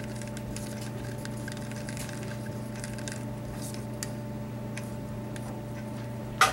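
A wooden stir stick scrapes and clicks softly around the inside of a small cup as two-part Smooth-Cast 320 urethane resin is mixed. A steady electrical hum runs underneath, and there is one sharp click near the end.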